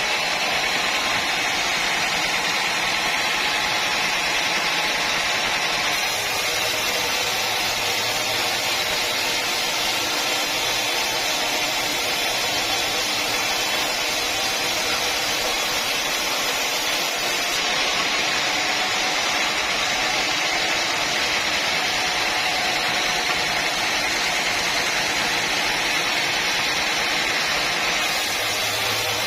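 Sawmill machinery running steadily, a sawmill saw working through teak logs, with a constant mechanical hiss and whine.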